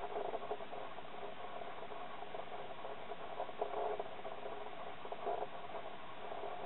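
Steady background noise: a muffled hiss with faint, irregular rustling and no clear source.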